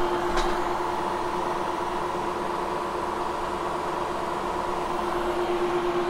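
Upright vacuum cleaner running steadily: an even motor whine over a rush of air, with a faint click about half a second in.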